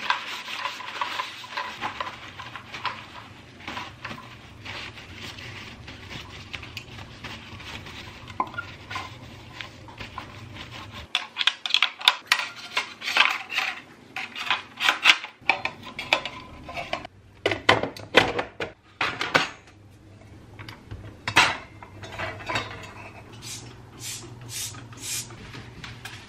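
Freshly washed coffee machine parts being dried with paper towels and handled at a stainless-steel sink: rubbing and rustling of the towel, with many clattering knocks of plastic and metal parts being picked up and set down. The knocking comes thickest in the second half.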